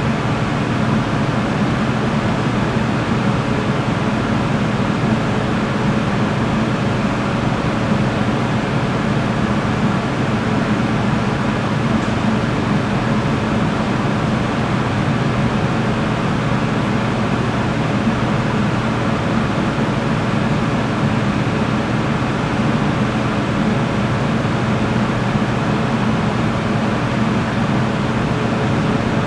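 Steady mechanical drone of kitchen machinery: an even rushing noise over a low hum that does not change.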